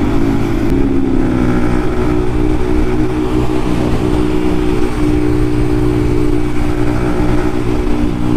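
Yamaha MT-15's single-cylinder engine, fitted with an aftermarket Akrapovic exhaust, running under way. Its note dips slightly about a second in, then holds steady at cruising speed.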